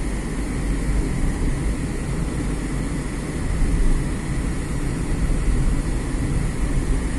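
Steady road and engine noise of a moving car, heard from inside the cabin, with a heavy low rumble that never lets up.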